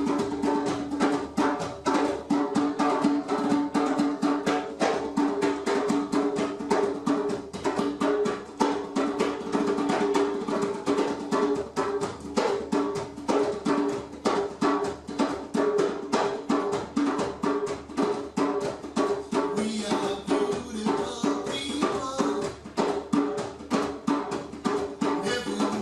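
Drums played in a zouk rhythm: fast, even strokes over a steady pulse, with a high hiss joining about twenty seconds in and again near the end.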